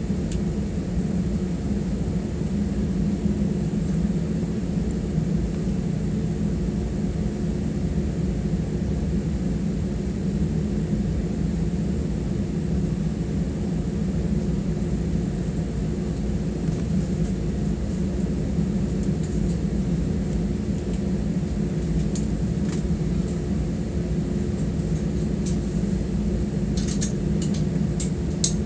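Steady low drone of an Airbus A320's engines and airflow heard inside the passenger cabin while the airliner taxis at low power, with a few faint clicks near the end.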